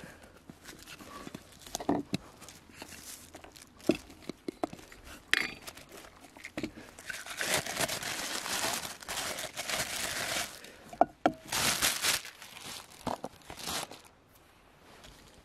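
Clear plastic bag crinkling as it is handled and opened, densest for a few seconds around the middle, among scattered knocks and rustles of camp cookware being unpacked onto a wooden table.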